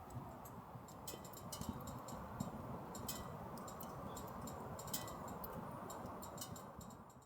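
Wood fire crackling in a small camp wood stove: scattered sharp pops and ticks over a steady low rush.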